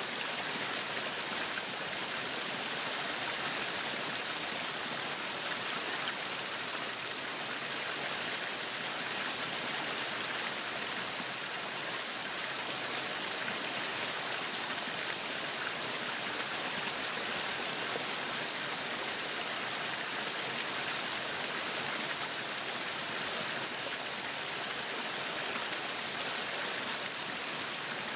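Meat sizzling steadily on a yakiniku grill.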